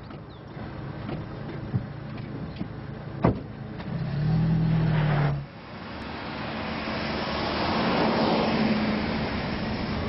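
A car door shuts with a sharp knock about three seconds in, then the Vauxhall Cavalier's engine starts and runs steadily for a second or so. The sound cuts off abruptly and gives way to the car driving along the road, its noise building up and then easing off.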